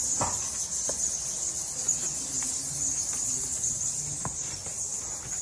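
Steady high-pitched chirring of animals, with a few soft knocks and taps scattered through it.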